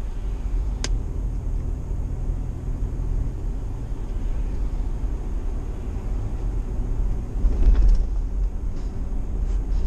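Car driving, heard from inside the cabin: a steady low rumble of engine and road noise that swells briefly near the end. There is one sharp click about a second in.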